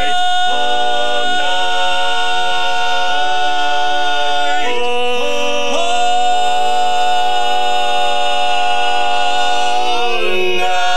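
Male barbershop quartet singing a cappella in close harmony, a song's ending: one high voice holds a single note throughout while the others step through a run of chord changes beneath it. They settle on a long held chord, then slide into a new one near the end.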